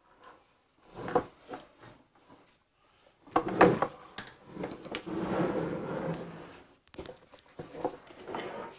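Clunks and scraping as a Ducati 900SS's swing arm and rear wheel are pulled out of the frame and lowered to the floor. There are a few light knocks, then a loud clunk a few seconds in, a dragging scrape lasting about two seconds, and more light knocks near the end.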